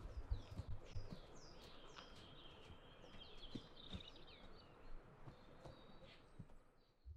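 A songbird singing repeated downward-sweeping chirps and a fast trill, over soft footsteps on a forest path. The sound drops off abruptly near the end.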